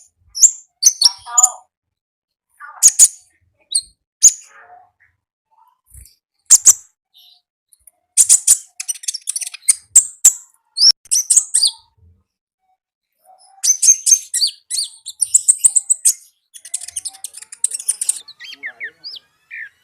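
A konin, a small songbird kept and trained in Indonesia, singing: sharp high chirps and bouts of rapid, high trilling, broken by short pauses.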